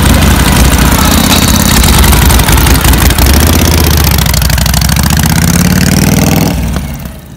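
Harley-Davidson chopper's V-twin engine running loud and rising in pitch as the motorcycle pulls away, then dropping away sharply near the end.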